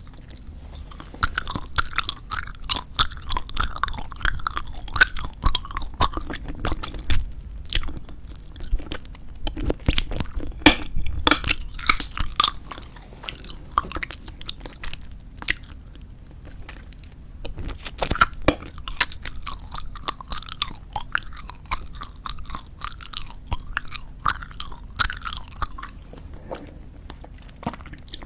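Close-miked chewing of soft tube bubble gum: rapid wet smacks and clicks of mouth and gum, easing off briefly around the middle and again near the end.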